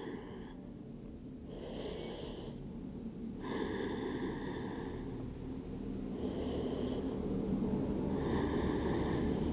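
Slow, deep human breathing close to the microphone during a yoga stretch, about four audible breaths, over a low, steady background rumble that grows slightly louder toward the end.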